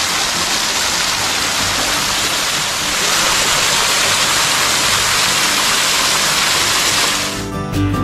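A small waterfall pouring and splashing down a rock face close by: a steady rushing hiss, a little louder from about three seconds in. Near the end it cuts off and acoustic guitar music starts.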